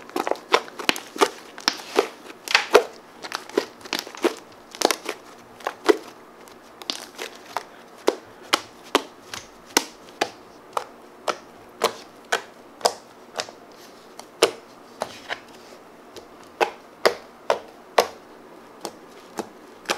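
Fluffy PVA-glue slime being squeezed and pressed by hand, giving a run of sharp wet clicks and pops, about two or three a second, with a short lull past the middle.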